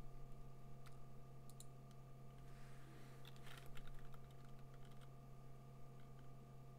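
Faint computer keyboard key presses and mouse clicks, a scattered handful with a cluster around the middle, over a steady low hum.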